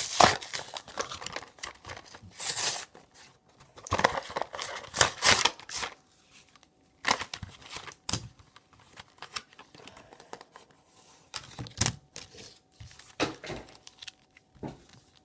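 Blister-pack packaging being torn open and crinkled by hand, in irregular bursts with short pauses between them.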